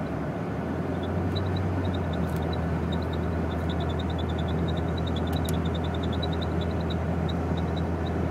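Jeep Cherokee running with a steady low drone that grows louder about a second in, with short high-pitched chirps coming several times a second over it, the odd noise whose cause is unknown.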